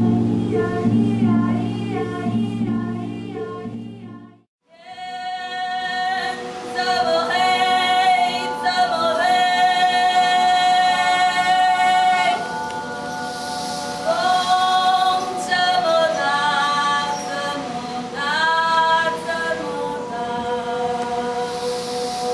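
Music: low sustained tones break off suddenly about four and a half seconds in, then voices sing long held notes, gliding between pitches over a steady drone.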